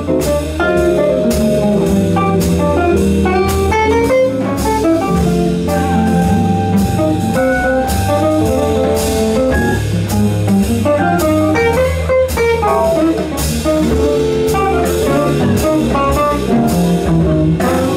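Small jazz band playing a swing tune live, an instrumental passage with guitar, double bass, piano and drum kit.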